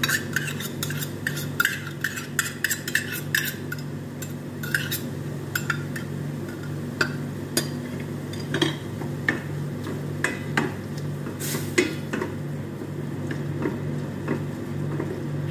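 A metal spoon taps and scrapes thick tomato pasta sauce out of a stainless steel measuring cup into a stainless steel frying pan, a quick run of clicks over the first few seconds, then scattered knocks. Near the end a spatula stirs the sauce into the minced beef in the pan. A steady low hum runs underneath.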